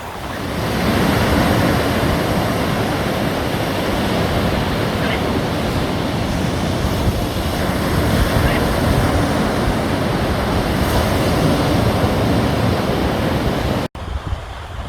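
Sea waves washing onto the shore, with wind buffeting the microphone. The sound cuts out for a split second near the end, then resumes.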